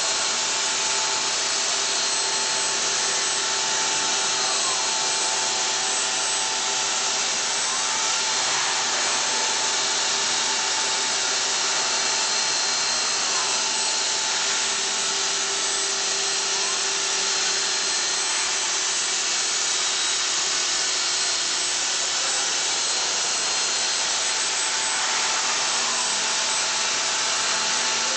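CNC stone-working machine cutting stone with a diamond profile bit: a steady, loud grinding hiss with a few faint whines that rise and fall now and then.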